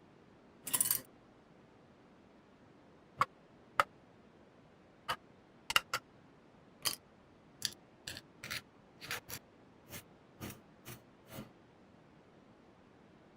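A series of about fifteen short, sharp clicks and snips at irregular intervals, like small hand tools working, over a faint steady hiss.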